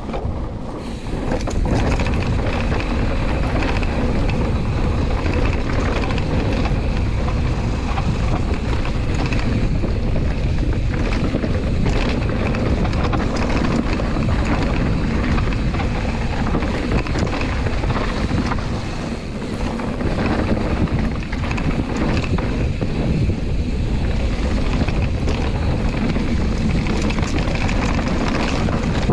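Mountain bike riding fast down a rough dirt and stone track: continuous tyre rumble and rattling knocks from the bike over the bumps, mixed with wind buffeting the handlebar camera's microphone.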